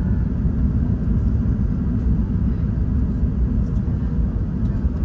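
Steady low rumble of jet airliner engines, with no distinct events.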